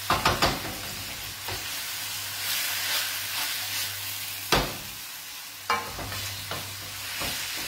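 Tonnarelli and wild broccoli sizzling steadily in a frying pan with added pasta water as they are stirred and tossed. A few sharp knocks sound, one about four and a half seconds in and one near six seconds.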